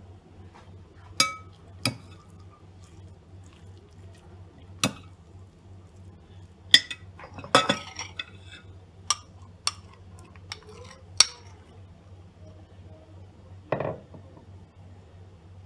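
Glass and kitchenware clinking: about a dozen separate sharp clinks, some ringing briefly, with a short clatter about seven and a half seconds in.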